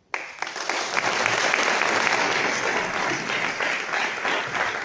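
Audience applauding, breaking out all at once and holding steady as many hands clap together.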